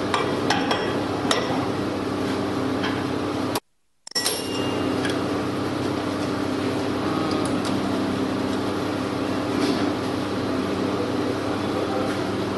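Occasional metal clinks and taps as a cutter block and spindle parts are handled and fitted onto a spindle moulder's spindle, over a steady mechanical hum. The sound drops out for about half a second a few seconds in.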